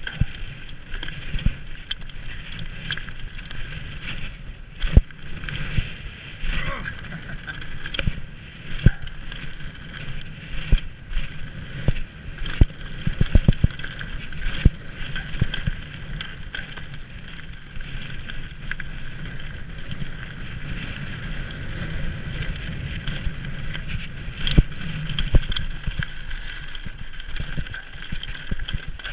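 Mountain bike rolling fast down a loose gravel and slate trail: tyres crunching over stones, the bike rattling and clattering, with frequent sharp knocks from rocks and bumps that cluster in several rough stretches. Wind buffets the helmet camera's microphone.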